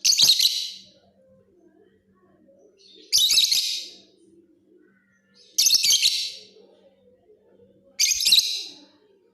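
Lovebird singing in four short bursts of rapid, shrill chattering chirps, each under a second long and about two and a half seconds apart.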